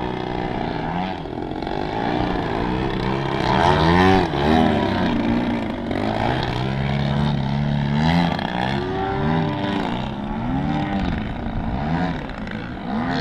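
Engines of two giant-scale Extra 330SC radio-controlled aerobatic planes in flight, their pitch repeatedly rising and falling, loudest about four seconds in.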